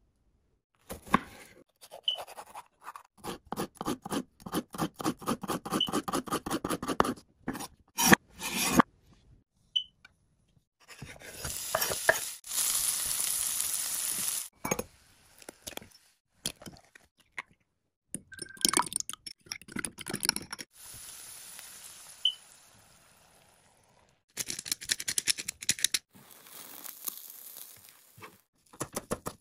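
Close-miked cooking sounds in short cuts: runs of quick taps and scrapes, then red bell pepper strips sizzling in oil in a frying pan, then more quick taps and the egg omelet frying.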